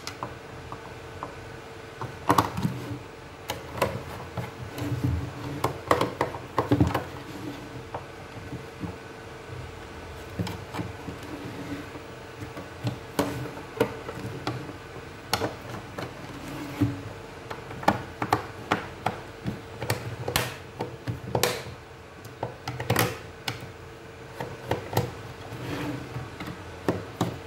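Irregular clicks and knocks of a screwdriver and hands working on the plastic casing of an iPhone-dock clock radio as its screws are taken out, over a faint steady hum.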